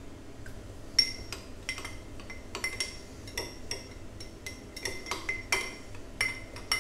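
A metal spoon stirring a chia pudding mix in a small glass jar, clinking against the glass two or three times a second at uneven intervals, starting about a second in.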